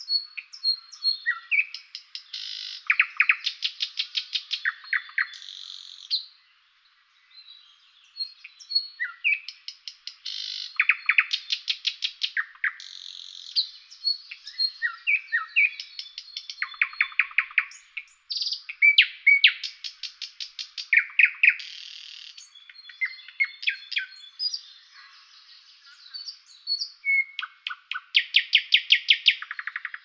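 Common nightingale singing a long series of varied phrases: rapid runs of repeated notes and trills alternate with clear whistles, with short pauses between phrases.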